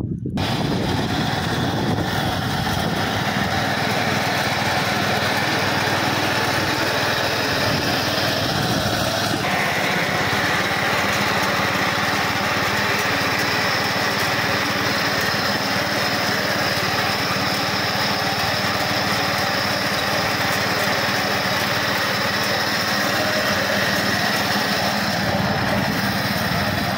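Power weeder's Honda 7 hp engine running steadily under load while its reaper attachment's cutter bar mows weeds. The engine note shifts slightly about nine to ten seconds in.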